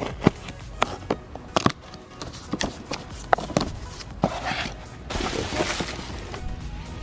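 A tower fan's cardboard box and packing being handled and opened: a run of sharp knocks and taps, then rustling about five seconds in, with background music underneath.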